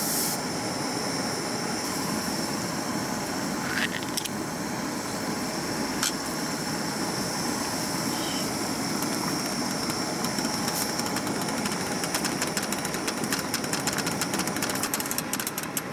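Cassette gas stove burner hissing steadily under a small pot of bubbling water, with a few light clinks as a glass sake cup is set into it. Rapid ticking sets in about three-quarters through, as the cup sits in the boiling water.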